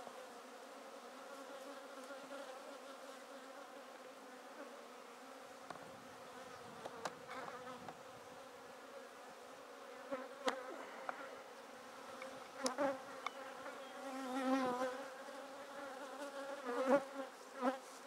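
A mass of honeybees buzzing steadily around an opened hive, the hum swelling louder a couple of times near the end. A few sharp knocks break in over it.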